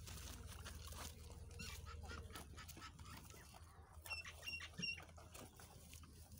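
Goats chewing and pulling at fresh green fodder, a faint crunching and rustling, with birds calling in the background. Three short, high chirps a little after four seconds in are the loudest sound.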